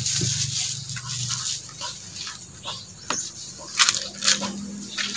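Manual knapsack sprayer spraying, a steady hiss of mist from the wand nozzle, with a few sharp clicks about three to four seconds in.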